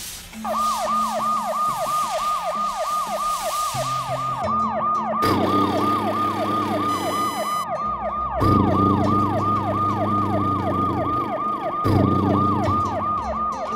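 Fast yelping siren, each cycle falling in pitch then snapping back up, about three times a second, over background music with a low beat that comes in after a few seconds.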